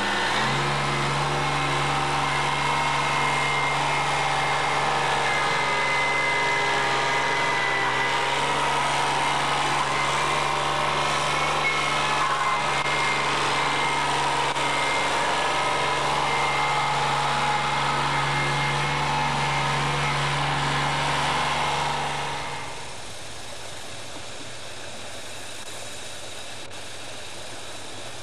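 Small compact farm tractor's engine running steadily, a low hum with a higher whine over it. About 22 seconds in it gives way to a quieter, steady engine noise.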